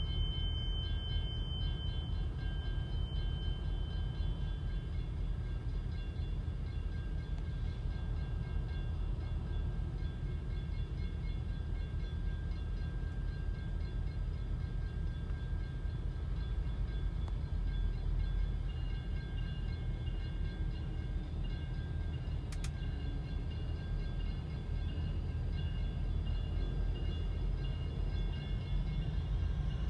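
Two EMD GP60M diesel locomotives, with 16-cylinder two-stroke engines, pulling freight cars slowly across a grade crossing, giving a steady low rumble heard from inside a waiting car. The crossing bell rings steadily over it.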